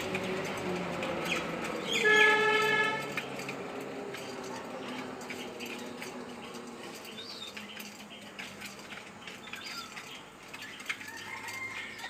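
Flock of domestic pigeons feeding on grain on a hard floor: many light pecking taps and wing flutters. About two seconds in, a loud drawn-out pitched call lasting about a second sounds over them, and a short chirp comes near the end.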